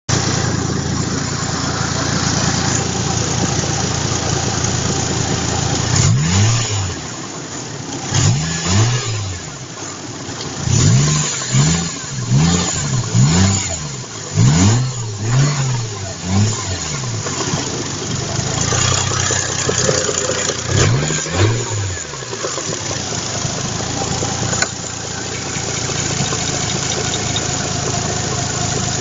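Toyota 1JZ-GTE VVT-i turbocharged inline-six idling, then blipped about a dozen times in quick short revs before settling back to idle. It has a camshaft knock that the owner blames on Liqui Moly 5W-40 Top Tec 4100 oil.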